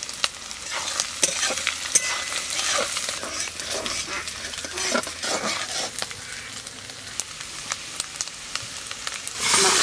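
Small pond snails frying in hot oil in a metal wok, sizzling while a metal spatula stirs and scrapes against the pan with frequent clicks. About half a second before the end the sizzle suddenly becomes much louder.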